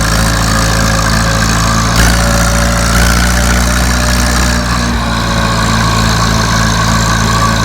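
A Case tractor's engine running steadily under heavy load, pulling a full silage wagon up a hill.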